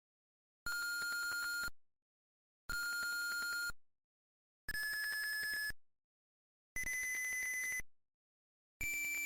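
Passive piezo buzzer driven by an Arduino's tone() function, giving five steady beeps about a second long, one every two seconds. The pitch steps higher on most beeps as each button press raises the frequency.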